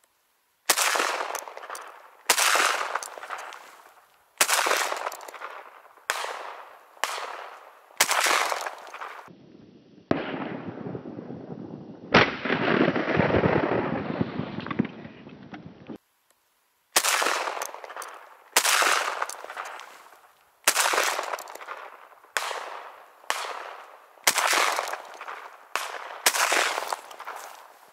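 A string of shotgun shots, each sharp report trailing off in an echo: about six shots in the first eight seconds, then about eight more in the last ten. In between is a muffled stretch of steady noise with one loud shot in it.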